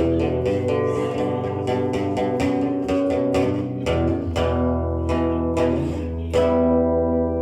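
Guitar strumming chords in a steady rhythm, the instrumental introduction of a song.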